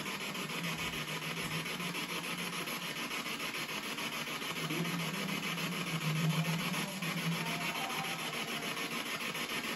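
Steady hiss of a quiet room's background noise, with a faint low hum that comes and goes, most plainly between about 4.5 and 8 seconds in.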